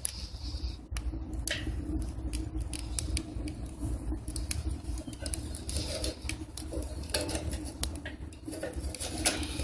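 Firewood sticks crackling and popping as they burn in a metal rocket stove: many irregular sharp ticks over a steady low rumble.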